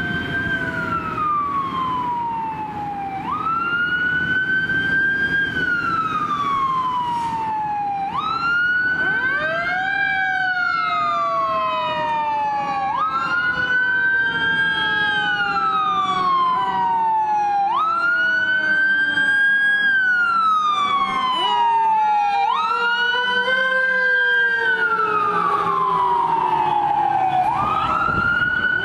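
Pierce fire engine's siren on a wail, rising quickly and then falling slowly, over and over about every five seconds. A second, lower sweeping tone runs alongside it through the middle of the stretch.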